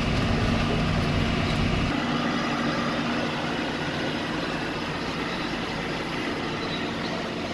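Farm tractor engine running steadily under load while pulling a hay rake. Its deep low rumble drops away about two seconds in, leaving a steady hum.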